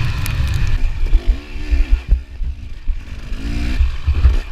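Dirt bike engine under heavy low rumble, revving up and down as the bike is ridden through slippery mud, with a few sharp knocks, one about two seconds in.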